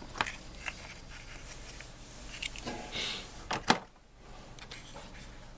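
Light clicks and taps of small model parts and tools being handled on a work surface, the sharpest pair about three and a half seconds in.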